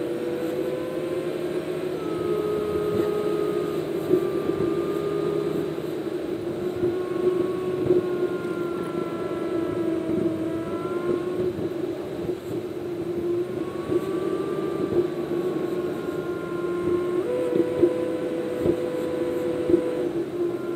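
Car driving on a highway, heard from inside the cabin: a steady engine and road drone with tones that slowly shift in pitch, and a few light knocks.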